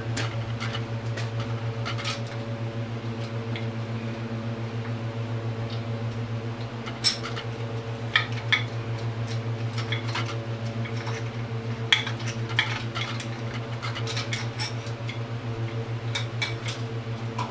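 Metal clinks and clicks of tools and parts at an ATV engine's timing end, a few sharp ones about a third of the way in and again past the middle, as the timing gear and cam chain are worked loose. A steady low hum from a running shop heater's fan lies under it all.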